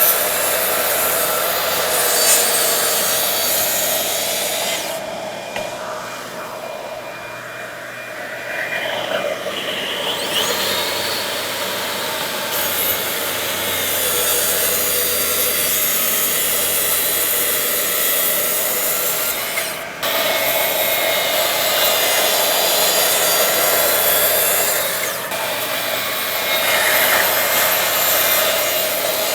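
Electric saw running and cutting through wood, a steady motor whine under the noise of the blade in the stock. The sound eases for a few seconds and cuts off abruptly partway through before running on.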